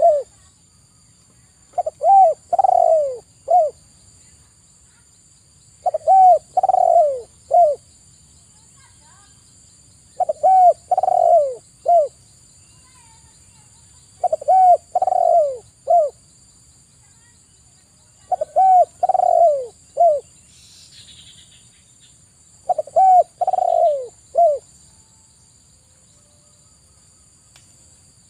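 Spotted dove (tekukur) cooing: a phrase of three to four arched coo notes, repeated about every four seconds, six times over. A faint steady high-pitched hum runs underneath.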